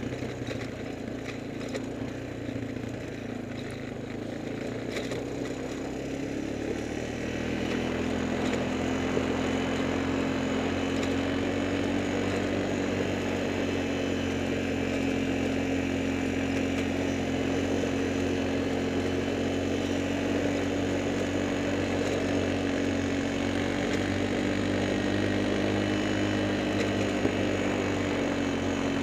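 A small motor or engine running at a steady speed, a pitched hum that gets louder about seven seconds in and then holds even.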